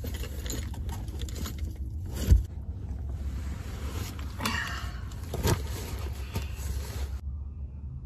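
Rustling and handling of a foil bubble-insulation window cover, bags and bedding being packed, with a few knocks and bumps, the loudest about two seconds in. A low steady hum runs underneath, and the rustling stops shortly before the end.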